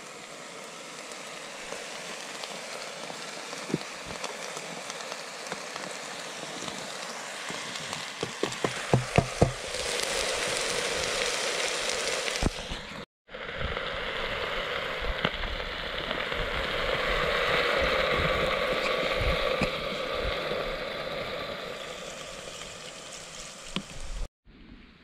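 Diced beef, onion and garlic sizzling in hot oil in a pot: a steady frying hiss that grows louder about ten seconds in, with a few sharp knocks shortly before.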